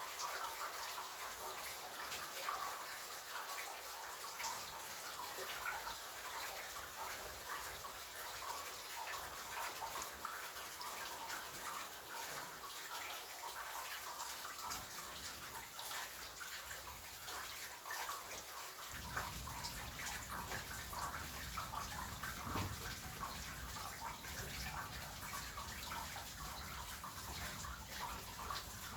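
Steady rain falling, a dense even hiss of many small drops. About two-thirds of the way through, a low rumble comes in underneath and stays.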